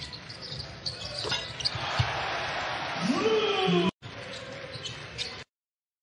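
Basketball bouncing on a hardwood court against arena crowd noise, which swells louder from about two seconds in. The sound cuts out abruptly just before four seconds, comes back briefly, then drops to silence near the end.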